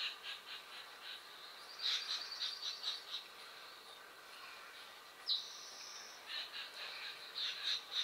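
Red-breasted sapsucker tapping at the tree around its nest hole: irregular runs of quick taps, with one high bird call about five seconds in.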